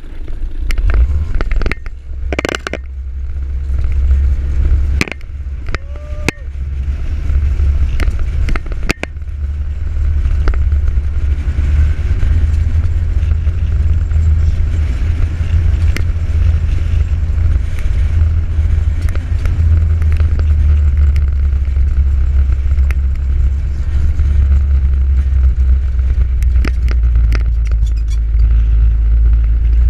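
ATV on the move: a loud, steady low rumble of engine and wind on the microphone. Scattered knocks and scrapes from the camera being handled come in the first nine seconds or so.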